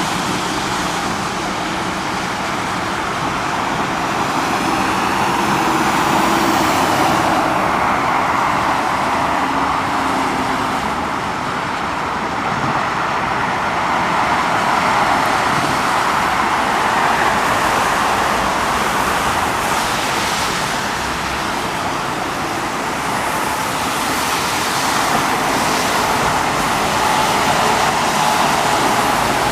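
Steady rushing noise that swells and eases slowly.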